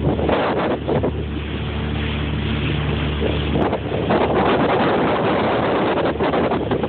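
Wind buffeting the phone's microphone, in gusts, over choppy lake water. From about half a second in to about three seconds in, a steady motorboat engine hum runs under it.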